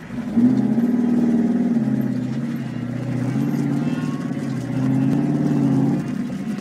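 Competition 4x4's engine running and revving while crawling over rocks, heard from on board: the revs come up about half a second in, ease off for a couple of seconds, rise again near five seconds and drop back about six seconds in.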